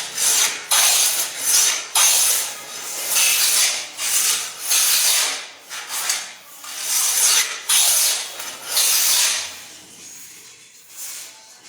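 Wood being worked by hand in repeated rasping strokes, a little more than one a second, that fade away near the end.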